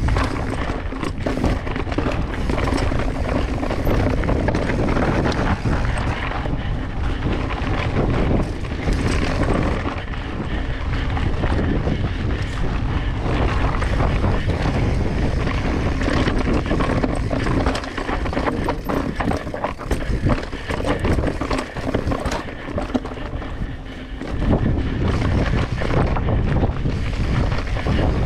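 Wind rushing over the microphone mixed with mountain bike tyres rolling over a rocky dirt trail, with the bike clattering over bumps. It is somewhat quieter for a few seconds past the middle.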